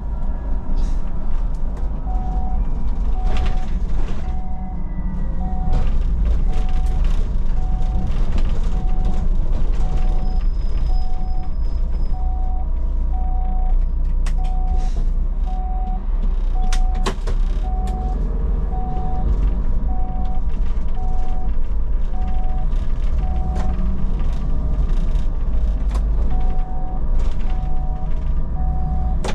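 Inside a Solaris Urbino 12 III city bus: the engine and running gear rumble low and steady, under a thin steady whine. A short electronic beep repeats about once a second from about two seconds in, pausing for a couple of seconds near the end.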